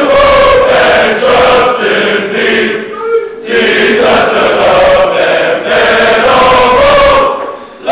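A large choir of teenage boys singing the college song together, loud, in long held phrases, with a short breath break about three seconds in and another near the end.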